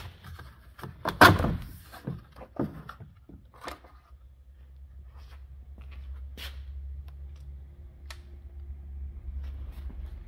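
Plastic taillight cluster of a 1994 Mazda 323 being pried and pulled off the car body: a run of clicks and knocks, loudest about a second in, then fainter scattered clicks. A steady low hum runs under the later part.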